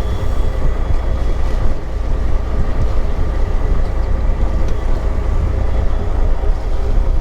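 Fishing boat's engine running steadily, with heavy wind rumble on the microphone.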